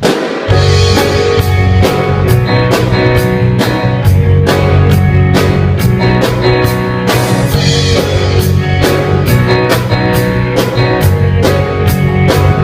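Intro music: a rock-style track with electric guitar and a steady drum-kit beat.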